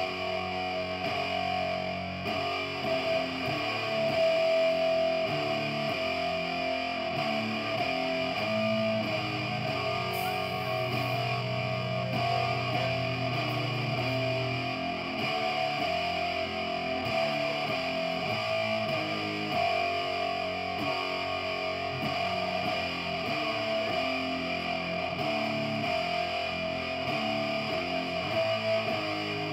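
Live rock band playing: distorted electric guitar over bass guitar and drums, with a held low bass note about a third of the way through.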